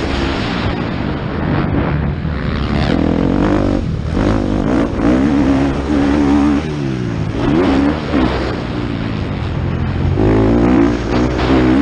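Motocross bike engine running under hard throttle, its pitch rising and falling again and again with throttle and gear changes over the jumps and straights.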